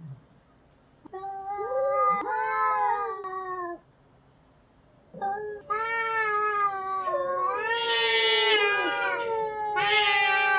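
Domestic cats caterwauling in a fight: long, wavering yowls, one after a brief pause, then after a second pause a continuous stretch of overlapping yowls that rise higher and louder twice, near the middle and near the end.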